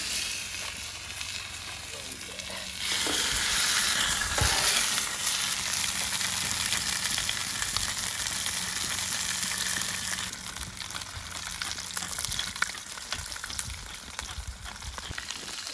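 Venison shanks sizzling in hot oil in a heavy pan over a wood fire, searing to brown. The sizzle grows louder about three seconds in and eases a little around ten seconds in.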